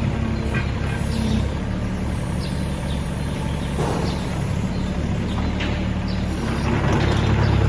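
Hitachi ZX30UR-2 mini excavator's diesel engine running steadily, with a brief scrape or knock about four seconds in. Near the end the engine grows louder and deeper as it takes on more work.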